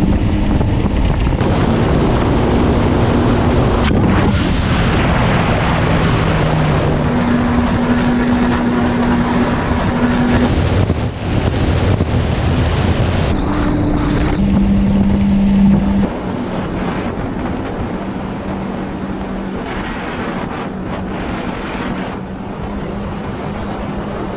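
Jet ski engine running at speed with water rushing and spraying from the wake, and wind buffeting the microphone. The engine's pitch jumps at a few cuts, and it is a little quieter for the last third.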